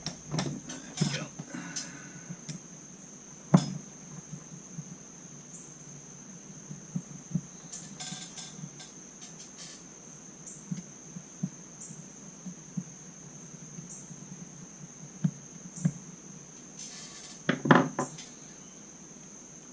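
Small metal parts and hand tools clicking and clinking while a chainsaw carburetor is taken apart, with a sharp clack about three and a half seconds in and a louder clatter near the end. A steady high-pitched tone runs underneath.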